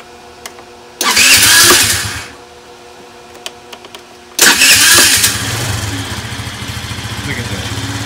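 Chinese 50cc scooter's electric starter cranking twice. The first burst, about a second in, fades out. The second, past the middle, catches, and the engine settles into a steady idle. The starter is getting its power from a battery charger clamped to the scooter's small battery, which on its own was too weak to turn the engine over.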